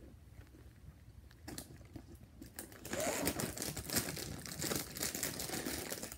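Plastic snack bag being handled and crumpled. Faint scattered crinkles at first, then about three seconds in it turns loud and continuous.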